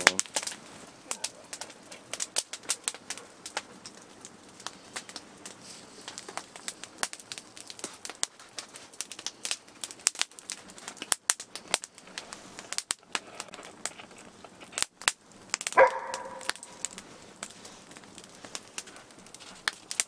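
Wood fire crackling and popping, a quick irregular run of sharp snaps, some louder than others. About sixteen seconds in, the Dutch shepherd gives one short bark.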